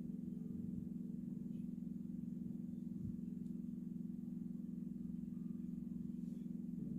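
A steady low hum that keeps an even pitch and level throughout.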